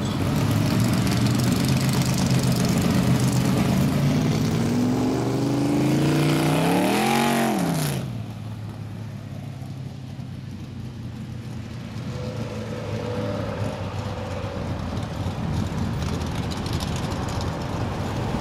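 A loud car engine pulls away and revs up, its pitch climbing for a few seconds and then dropping back. About eight seconds in, the sound cuts to quieter street traffic, with cars driving by.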